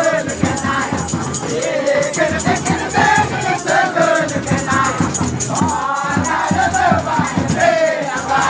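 A group of voices singing a Munda devotional durang song over dense, steady percussion with a rattling shimmer, as dance music.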